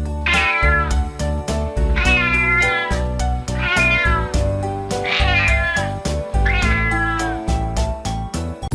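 Five drawn-out animal calls, each falling in pitch, over upbeat children's background music with a steady beat.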